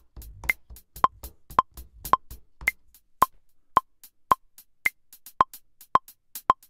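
Maschine's metronome clicking steadily at 110 BPM, about two clicks a second, with a higher-pitched click on every fourth beat. Over the first couple of seconds, closed hi-hat hits played on the drum pads at varying velocities fall between the clicks while the part is recorded in 16 Levels mode.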